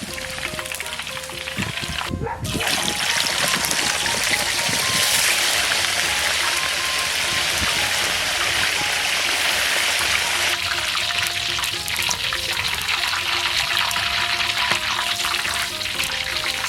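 Pork ribs deep-frying in a wok of hot oil, a steady loud sizzle that starts after a short break about two seconds in, with light background music.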